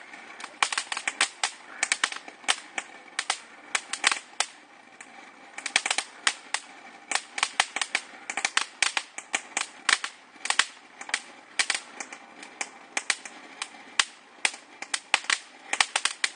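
Ground fountain firework spraying sparks: a steady hiss with rapid, irregular crackling pops throughout.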